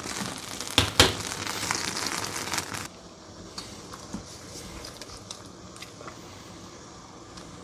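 Pot of water at a rolling boil, a steady crackling hiss, with two sharp metal knocks about a second in as a strainer of greens goes into the pot. The boiling cuts off suddenly about three seconds in, leaving a faint background with a few light clicks.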